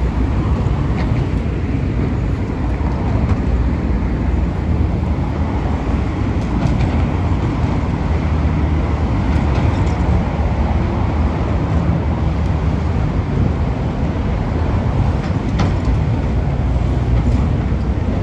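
Steady low rumble of road traffic passing over a city bridge.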